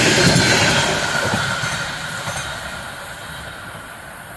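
Passenger coaches rolling past on the rails and receding, the wheel-on-rail noise fading steadily away as the end of the train goes by, with a thin high wheel squeal that sinks slightly in pitch as it fades.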